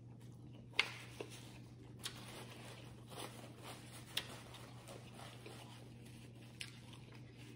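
Quiet eating close to the microphone: about five faint clicks and taps, the clearest about a second in, over a low steady hum.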